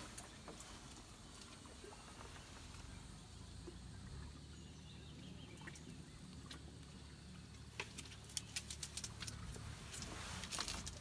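Faint light clicks, taps and scratches of hands handling hooks, prawn bait and styrofoam floats, over a steady low rumble; the clicks come thickest from about eight seconds in and again near the end.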